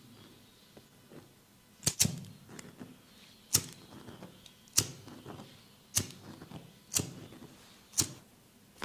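Sharp slaps of a barber's hands during a head and neck massage. There are about seven strikes, roughly one a second, with the first two in quick succession.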